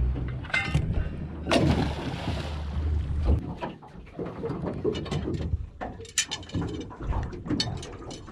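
Small boat's outboard motor idling with a steady low hum, then cut off about three seconds in, followed by scattered knocks and rattles of gear being moved in the boat.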